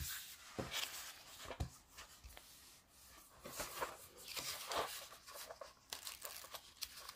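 Hands pressing and sliding over the protective top sheet of a diamond painting canvas, giving faint, irregular rustles and crinkles with a few soft taps.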